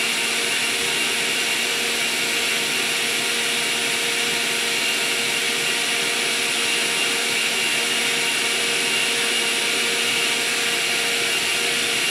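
Oster countertop blender with a glass jar running at a constant speed, blending a thick dark drink: a loud, steady motor whine over the churning of the contents.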